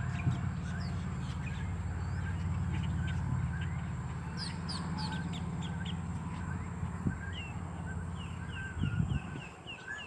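Wild birds calling in a wetland: short falling chirps repeated in quick runs, one about four seconds in and another near the end, over a steady low rumble.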